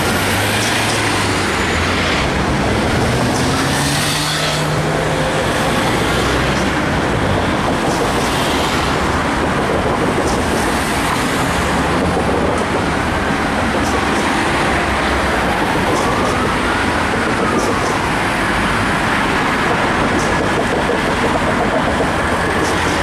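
Steady city street traffic, with engines of passing cars and buses. From about halfway through, a distant police car siren can be faintly heard in a slow rising-and-falling wail.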